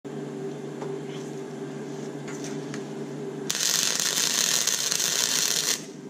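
MIG welder humming, with a few faint clicks; about three and a half seconds in, the welding arc is struck and hisses and crackles steadily for about two seconds before it stops suddenly and the hum carries on.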